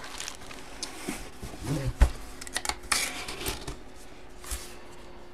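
Cardboard box and card packaging being handled: scattered light clicks and rustles, with a sharp thump about two seconds in.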